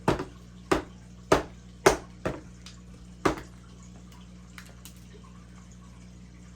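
A small mallet knocking parts of a wooden folding-knife kit together: six sharp, uneven knocks about half a second apart, stopping after about three seconds, followed by a few faint ticks.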